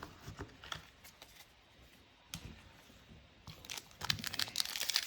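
Foil booster-pack wrapper crinkling and being torn open, starting about four seconds in after a few faint clicks.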